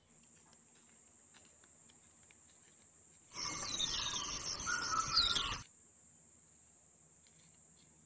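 Insects droning steadily at a high pitch. About three seconds in, the drone gives way for a couple of seconds to louder bird calls with falling whistles, then returns.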